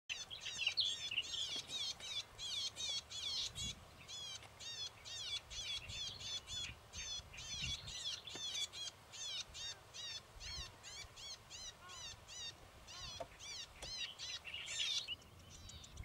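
Golden-headed cisticola calling: a long series of short, arched chirps repeated about two to three times a second, stopping shortly before the end.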